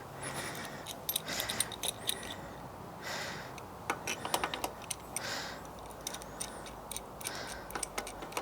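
Metal hand tools clinking and clicking: a spanner and crank puller being handled at a bicycle crank, with irregular light metallic clicks and a few brief scrapes.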